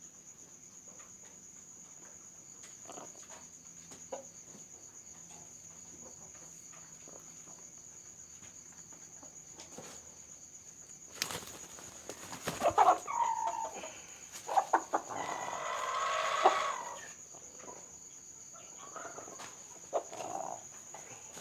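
A rooster squawking and clucking loudly in several outbursts from about halfway through, as it is handled for force-feeding. A steady high insect trill, crickets, runs underneath.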